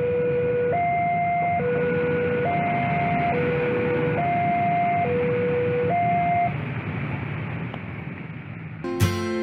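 Railway level-crossing warning alarm sounding a two-note tone that alternates low and high, each note just under a second, over the rumble of a passing train and traffic. The alarm stops about six seconds in as the barriers lift, leaving motorcycle traffic, and guitar music comes in near the end.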